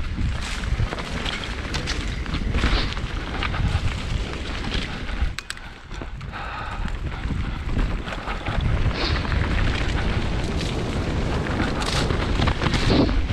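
Mountain bike ridden fast along a forest trail, heard through an action camera's microphone: wind buffeting the mic over tyre noise on the dirt, with frequent sharp rattles and knocks from the bike over bumps. The noise drops briefly a little under halfway through.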